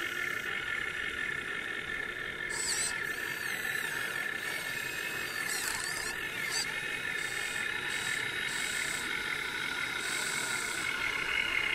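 Electric gear motors of a Huina 1580 RC excavator running as the arm and bucket dig into sand, a steady high whine of several tones, with a higher hiss cutting in and out several times.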